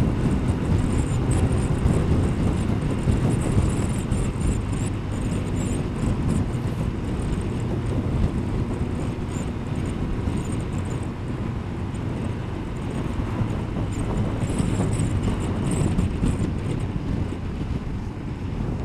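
Kawasaki ZZR1200 motorcycle cruising at road speed: steady wind noise over the microphone and road rumble, with the inline-four engine running evenly underneath.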